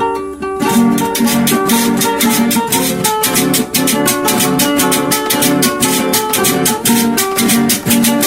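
Instrumental music with plucked string instruments and maracas: a held chord rings for about half a second, then a steady fast rhythm of maraca shakes and strummed strings sets in.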